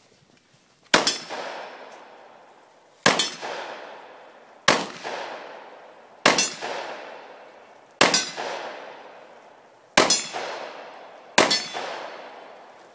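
Seven pistol shots, paced about one and a half to two seconds apart, each followed by the clang and ringing of a steel target being hit.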